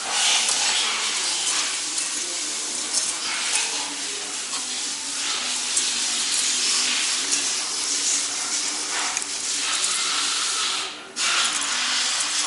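A steady hiss like rushing air or running water, with a faint low hum beneath it; it cuts out briefly near the end and returns.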